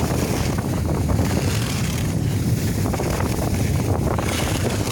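Wind rumbling steadily over a phone's microphone as a skier runs downhill, with the hiss of skis sliding on packed snow; the hiss grows brighter near the end.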